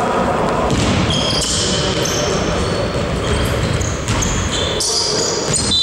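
Basketball game play: sneakers squeak sharply on the court floor several times over running footsteps, and a basketball bounces.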